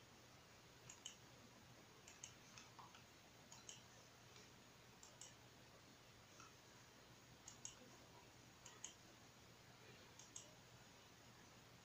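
Faint computer mouse clicks, many in quick pairs of press and release, coming about every second or so.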